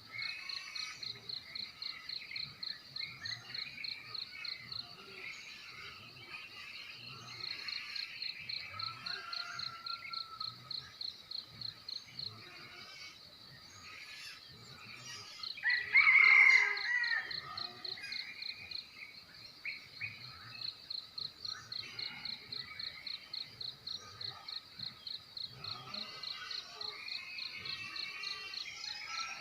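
Crickets chirping in a steady, fast, high-pitched pulse, with a break a little before the middle. Assorted birds call over them, and one much louder bird call comes about halfway through.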